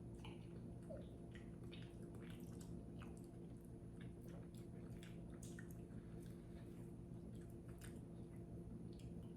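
A person chewing and biting a red-bean ice cream treat: faint, scattered small mouth clicks and squishy chewing over a steady low hum.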